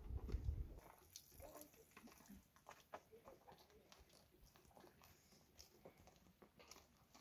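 Faint footsteps on a dirt path, with scattered small clicks and a brief low rumble in the first second.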